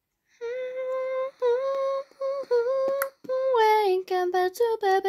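A girl humming a tune. Long steady notes come first, then a note slides down about three and a half seconds in, followed by several shorter, lower notes.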